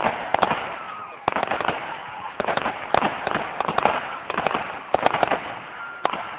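Fireworks display: a rapid barrage of shell bursts and crackling, many bangs in quick succession. There is a brief lull just before a second in, then a sudden new volley.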